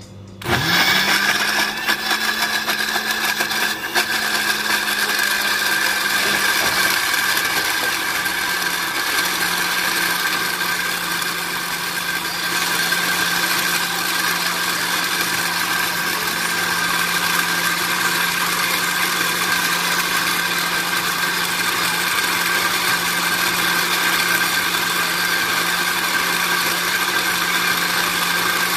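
Electric countertop blender switched on about half a second in, its motor spinning up with a brief rising whine and then running steadily, blending lemon peel, sugar and olive oil into a scrub.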